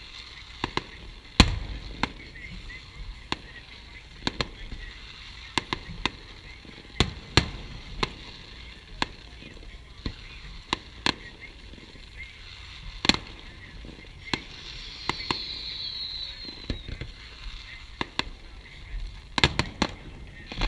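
Fireworks display: aerial shells bursting in irregular sharp bangs, several a second at times and at others a couple of seconds apart, the loudest about a second and a half in. A brief falling whistle about fifteen seconds in.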